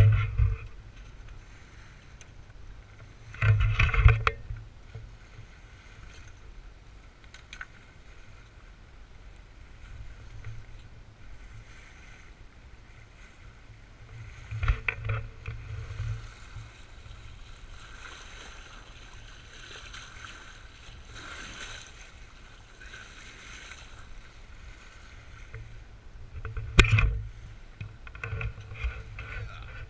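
Wind and water noise aboard a small sailboat under sail: a steady low rumble and hiss, broken four or five times by louder rushes of wind buffeting or water against the hull.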